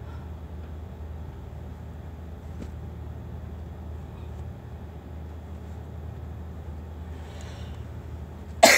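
A steady low hum throughout, then a man's single loud cough near the end, falling in pitch as it fades.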